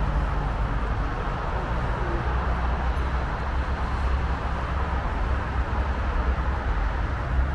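Steady city street noise of car traffic going by, with a deep low rumble.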